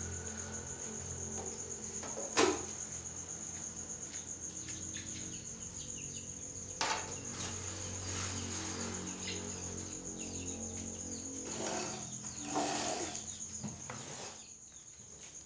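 Crickets chirring steadily in the background, a continuous high trill over a low steady hum, with one sharp click about two and a half seconds in and a couple of fainter knocks later.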